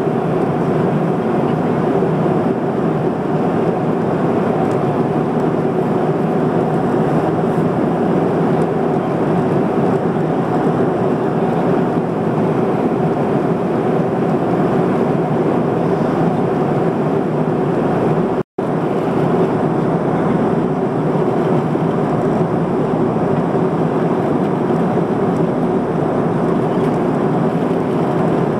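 Cabin noise of an Airbus A300-600R airliner in flight, heard from a window seat over the wing: a steady rush of airflow and engine noise with a low hum running under it. The sound cuts out completely for a split second about two-thirds of the way through.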